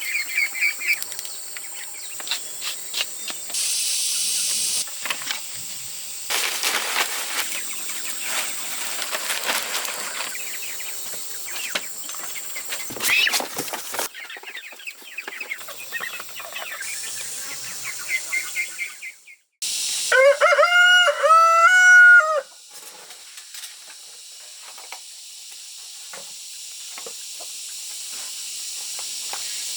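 A rooster crows once, loud, about two-thirds of the way through, a multi-part cock-a-doodle-doo of a little over two seconds. Before it come scattered clicks and scraping or rustling handling noises.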